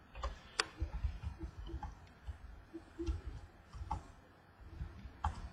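A few sharp, scattered clicks among soft low knocks and thumps, the sound of small objects being handled on a table.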